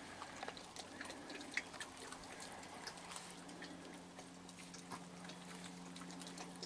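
Raccoons eating sunflower seeds and kibble: faint, irregular small crunches and clicks of seeds being cracked and chewed, over a faint steady low hum.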